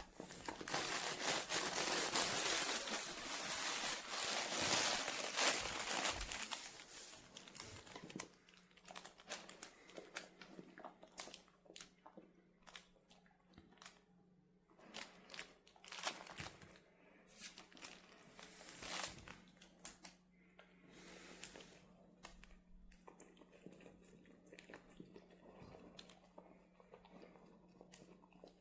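Dog rummaging in a crinkly fabric chips-bag snuffle toy filled with treats. For about the first eight seconds there is dense, continuous crinkling, then scattered short crinkles and crunches.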